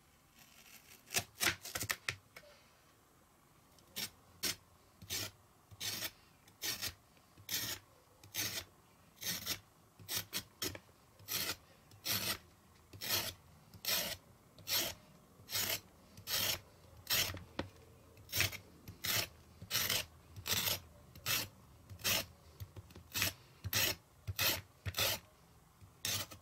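A kitchen knife blade scraping the skin off a raw carrot against a plastic cutting board. It starts with a quick run of strokes about a second in, then settles into short, even scrapes a little more than one a second.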